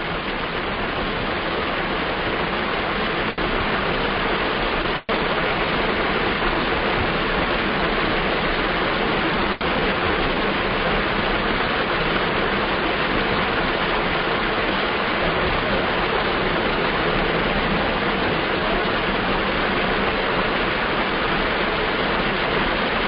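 A steady, loud rushing hiss with no pitch, broken by three brief dropouts a few seconds apart.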